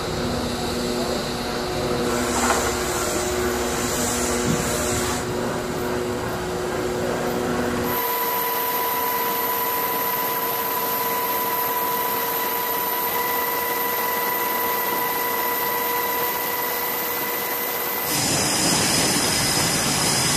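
Steady machinery hum and whine in stretches that change abruptly at cuts. First comes a low hum with a few steady tones, then from about eight seconds a higher, steadier whine. Near the end the louder noise of jet engines on an aircraft carrier's flight deck begins, where an F/A-18 Super Hornet is taxiing.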